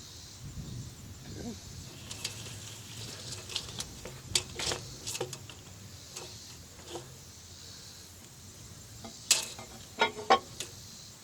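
Scattered light knocks and clicks from handling timber and tools, with a few sharper, louder knocks near the end, over a steady high insect buzz.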